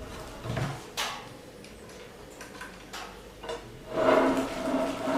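Parts of a trinocular microscope being handled and fitted together by hand: a few separate knocks and clicks, then a longer, louder scraping rattle about four seconds in as the head is set onto its holder.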